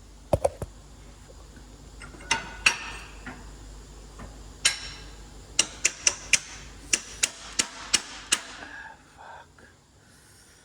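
Sharp metal-on-metal knocks, about a dozen at irregular intervals and more tightly spaced in the second half, over a low steady hum that stops near the end, as a new front wheel bearing is worked into place.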